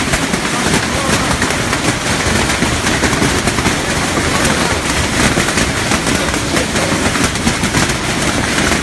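Hailstorm: hailstones pelting down without a break, a loud, dense, steady clatter of countless small impacts.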